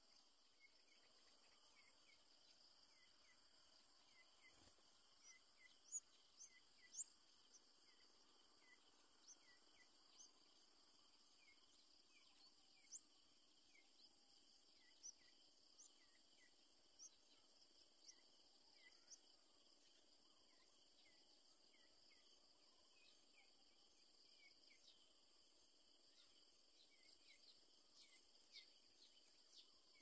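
Faint steady high-pitched insect trilling, with many short faint chirps scattered throughout and a soft knock about four and a half seconds in.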